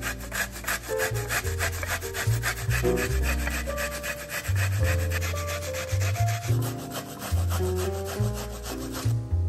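A small red onion rubbed quickly up and down a stainless steel box grater: a rhythmic metal rasping at about five strokes a second, which stops a little before the end. Background music plays underneath.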